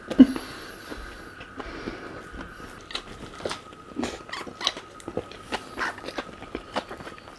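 Close-up eating sounds: chewing with many scattered small clicks, and one louder knock just after the start.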